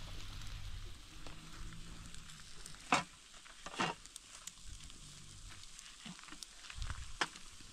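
Chicken kebabs sizzling faintly on metal skewers over charcoal, with a few sharp clicks and scrapes of the skewers, the loudest about three and four seconds in.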